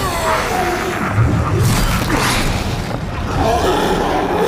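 Low booming rumbles mixed with shouting voices and dramatic music.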